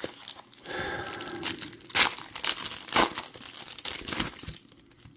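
Foil wrapper of a baseball card pack crinkling and tearing as it is ripped open by hand, with sharp crackles that are loudest about two and three seconds in, dying down near the end.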